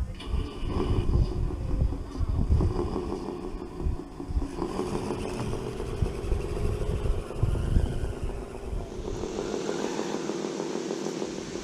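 Radio-controlled truck's small electric motor running with a steady whine while wind buffets the microphone. Near the end the wind rumble drops away and a brighter, hissier high-pitched whine takes over.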